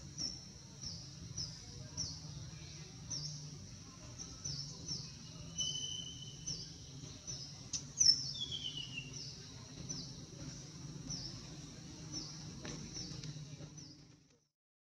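A bird repeating a short, high, falling call nearly twice a second over a low steady hum, with a sharp click about eight seconds in. The sound fades out near the end.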